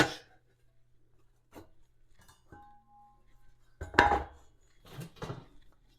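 Pieces of steel channel and angle stock being set down and shifted against each other: a few light clinks, a short metallic ring, and a louder clank about four seconds in, then another smaller one.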